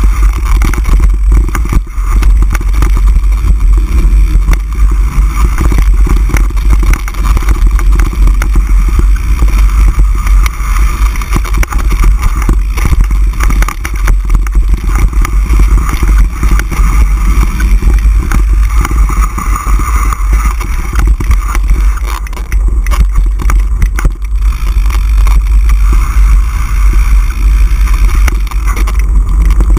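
Mountain bike riding down a dirt singletrack, heard through a bike- or helmet-mounted action camera: wind rumbling over the microphone, with constant rattling and knocking as the bike rolls over the rough trail.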